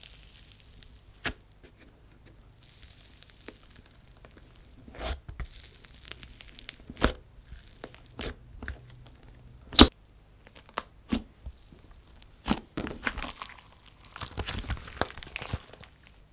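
Soft, sizzly slime mixed with clay being poked and stretched by hand, with a faint high crackling hiss and scattered sharp pops and clicks, the loudest about ten seconds in.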